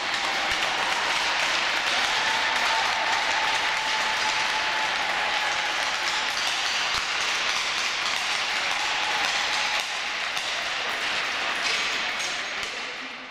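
Spectators applauding steadily in a hockey arena.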